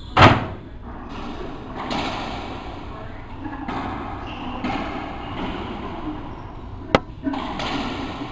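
Racquetball rally in an enclosed court: a loud, echoing smack of the ball being struck just after the start, and another sharp crack about seven seconds in.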